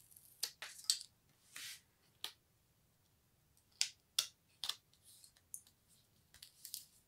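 Green adhesive insulating cardboard being handled: its paper backing peeled away and the sheet pressed and smoothed onto the tops of 18650 lithium-ion cells, giving a scattered series of short crackles and clicks.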